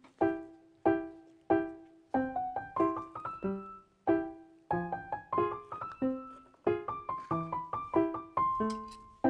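Solo piano background music, a slow, lonely-sounding tune of single struck notes that ring and fade, coming more closely together after the first couple of seconds.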